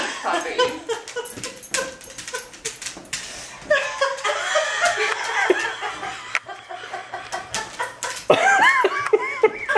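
Dogs moving about on a tile floor, with light clicks from claws and collar tags. People laugh around the middle, and near the end a dog gives a run of high, rising-and-falling whimpers.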